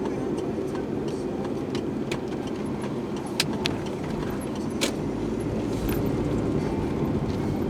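Steady road noise of a vehicle on the move, with a few sharp clicks around the middle and a deeper rumble coming in over the last few seconds.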